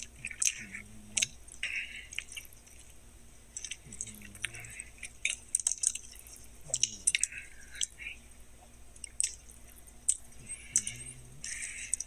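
A person chewing a mouthful of a crispy chicken wrap: irregular wet smacks and sharp crackly clicks, with a few brief low hums in between.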